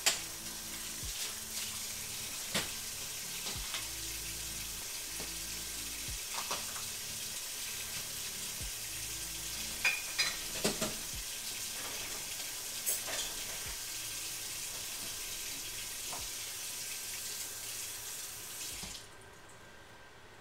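Kitchen tap running into a stainless steel sink during washing up, with occasional clinks and knocks of dishes. The water shuts off suddenly near the end.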